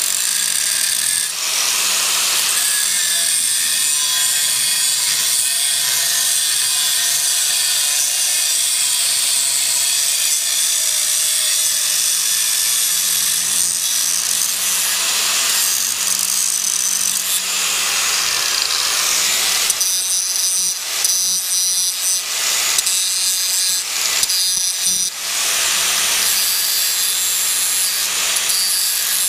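Angle grinder running and grinding a small steel part held in locking pliers, a steady motor whine under a harsh hiss of grinding. The grinding grows choppier in the second half as the disc bites and lifts off the metal.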